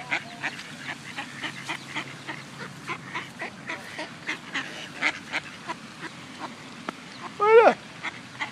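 Mallards calling: a string of short, sharp calls, about three a second, and near the end one louder call that falls in pitch.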